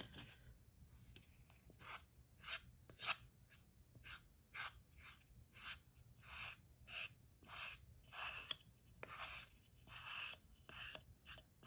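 Small metal palette knife spreading thick craft glue across a laser-cut wooden floor piece, in short, faint scraping strokes about two a second.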